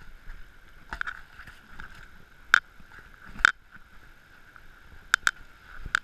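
Mountain bike rattling over a rough dirt trail, with several sharp clacks of the frame and parts over a steady background hiss.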